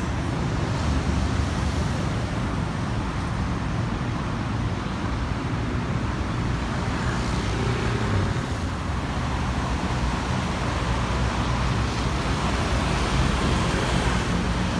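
Steady road traffic: cars driving past on a city street.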